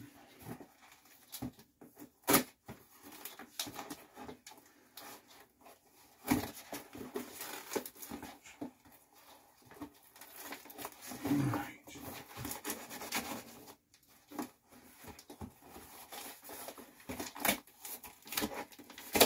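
Shipping envelope being slit open with a knife and its contents pulled out: irregular scraping, tearing and crinkling of paper and plastic, with sharp knocks on the toolbox top.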